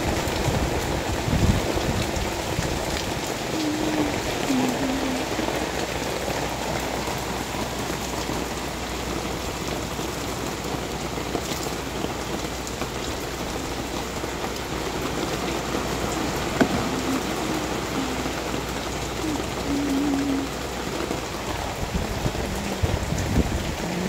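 Heavy typhoon rain pouring steadily onto a wet concrete path and the surrounding leaves and plants.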